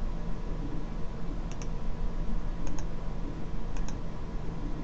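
Computer mouse clicking a few times, roughly once a second, over a steady low hum and hiss.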